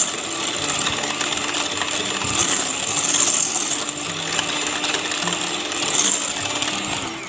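Scarlett electric hand mixer with a wire balloon whisk attachment running steadily as it beats whipped cream in a bowl, then stopping near the end. The cream is thickening to stiff peaks.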